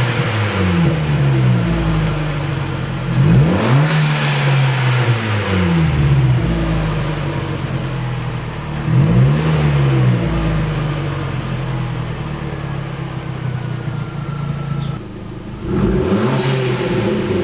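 Fiat Bravo T-Jet's 1.4 turbo four-cylinder, running with its rear muffler removed, blipped from idle three times. Each time the revs rise quickly and fall back to idle, with a deep exhaust note.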